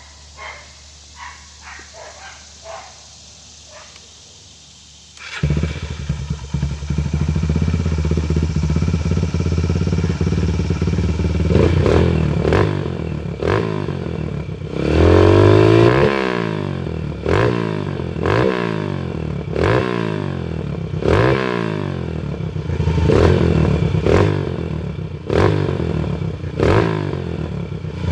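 A Yamaha TT-R 125 pit-bike engine, enlarged to about 150 cc and breathing through an FMF 4.1 full exhaust, starts about five seconds in and idles. From about twelve seconds in, the throttle is blipped over and over, about once every second and a half, each rev rising and falling back.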